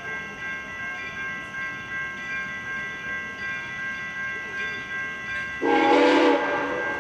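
Grade-crossing warning bell ringing steadily at about two strokes a second. About five and a half seconds in, the approaching Soo Line steam locomotive's whistle gives one short blast of about a second, the loudest sound here.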